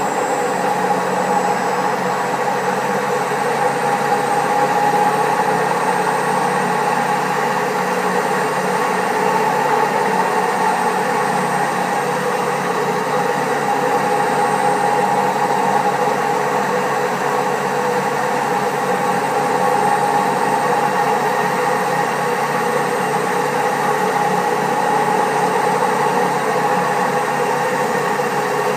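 Servis Caress 1300 A washing machine spinning, a steady loud mechanical noise from its drum running on very bad bearings.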